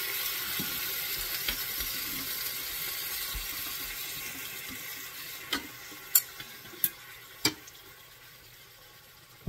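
Marinated elk meat sizzling in a hot frying pan with olive oil and butter, the sizzle fading steadily as the liquid from the wet meat floods the pan. A few sharp clicks come through about two-thirds of the way in.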